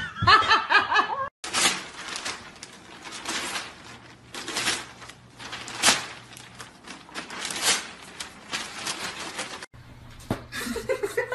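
Newspaper pages rustling and crinkling in repeated short bursts. Near the end a small dog starts making wavering, whining calls.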